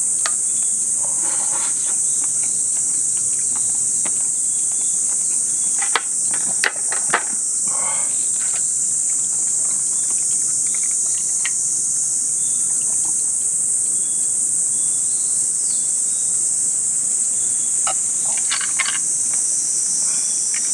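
Steady, high-pitched buzzing chorus of summer insects, with a few sharp clicks about six to seven seconds in.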